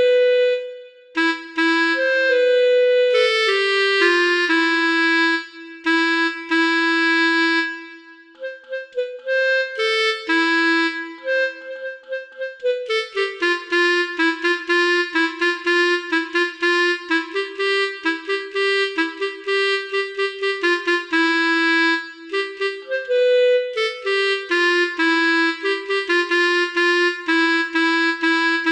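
Telolet multi-tone bus horn playing a tune of reedy notes, often two at once, stepping up and down. Brief breaks come a few times in the first half, then the notes turn short and quick.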